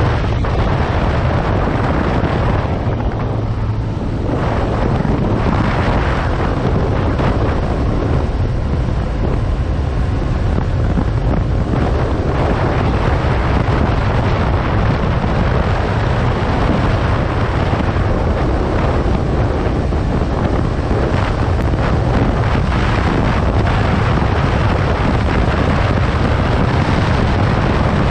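Heavy wind rushing over the microphone of a moving motorcycle, with the 2015 Yamaha FZ6R's inline-four engine running steadily underneath.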